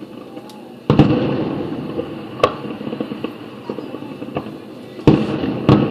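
Aerial fireworks shells bursting: a loud boom about a second in and another near the end, each trailing off slowly, with smaller pops and crackles between.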